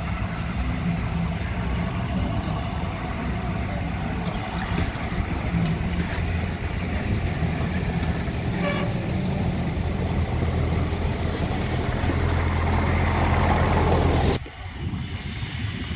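A train of wooden-bodied passenger coaches rolling past on the rails: a steady rumble and clatter of wheels that grows a little louder, then cuts off abruptly about fourteen seconds in.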